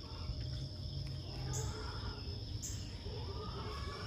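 Outdoor insect chorus: a steady high-pitched trill with a shorter, higher buzz repeating about once a second, over a low background rumble.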